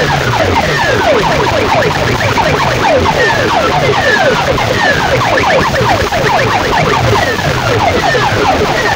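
Siren-like electronic sound effect played loud through a DJ sound system's speakers: quick, repeated falling sweeps over a pulsing low tone.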